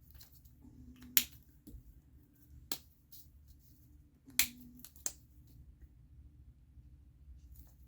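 Alcohol marker caps clicking as they are pulled off and snapped back on: four sharp clicks spaced a second or two apart.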